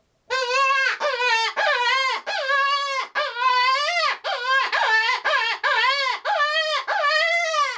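Open-reed predator hand call, Travis's Black Death, blown as a rabbit distress: about a dozen loud wailing cries in quick succession, each rising and then falling in pitch, with short breaks between.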